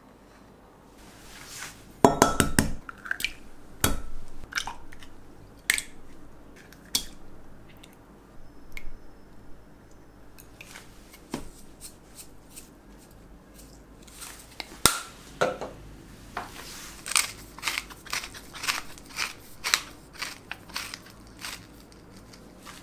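Food-prep handling sounds: scattered knocks, taps and clicks of ingredients and utensils against a wooden cutting board and a glass measuring jug. There is a louder cluster of knocks about two seconds in and a run of quick taps near the end.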